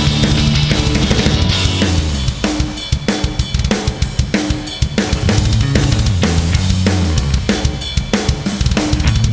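Background music with a driving rock drum beat and bass line.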